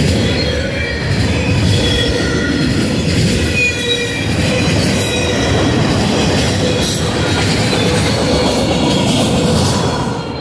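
Freight train of autorack cars rolling past at close range: a steady loud rumble of the wheels on the rails, with high wavering wheel squeal over it.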